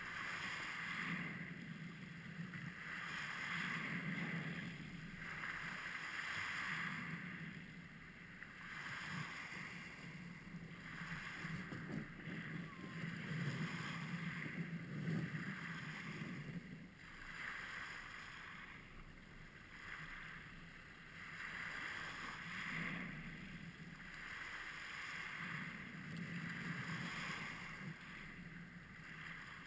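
Small lake waves breaking and washing over a pebble beach, surging and falling back every few seconds.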